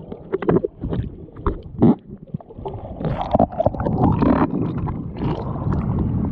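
Muffled sound of sea water moving around a submerged action camera: bubbling and sloshing with scattered knocks in the first two seconds, then a denser, steadier rush of water from about three seconds in.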